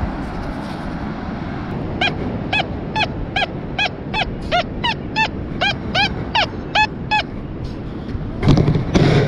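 A gull calling a quick series of about fifteen short, arched yelping notes, about three a second, over steady wind and surf noise. A louder rush of noise comes near the end.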